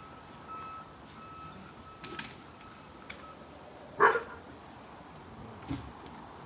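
A dog barks once, loud and short, about four seconds in, with fainter dog noises around two seconds and near the end.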